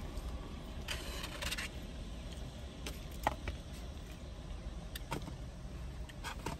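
Plastic spoon scraping and clicking in a takeout cup of chili, with a few eating sounds, over a steady low rumble.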